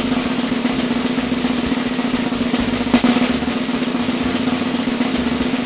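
A chocalho (shaker) shaken in a fast, continuous, even rattle.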